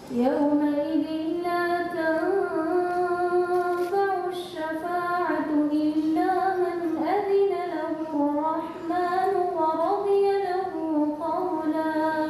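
A woman reciting the Quran in a melodic tajweed style: one long drawn-out phrase, the pitch rising and falling in ornamented turns on held notes.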